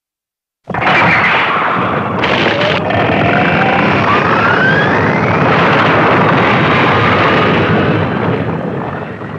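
Animation sound effect of a long rumbling explosion as the battleship Yamato bursts out of its rock shell. It starts abruptly just under a second in, with a rising whine through the middle, and fades near the end.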